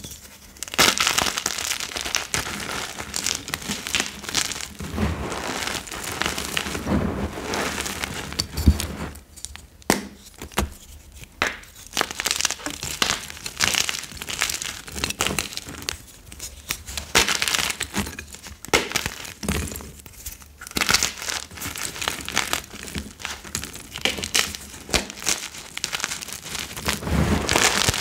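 Blocks of gym chalk being snapped and crushed by hand into loose chalk powder: dense, crisp crunching and crumbling, with a couple of short pauses.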